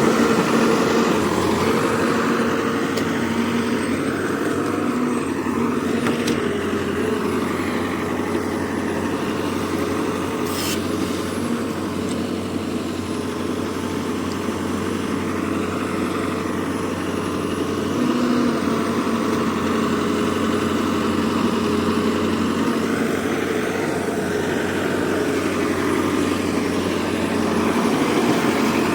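A heavy machine's engine running steadily at an even speed, with one short sharp click about ten seconds in.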